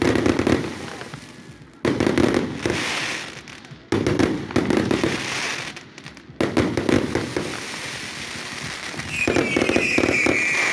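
Aerial fireworks going off: a sudden loud bang about every two seconds, each trailing off into crackling. A high whistle falls in pitch near the end.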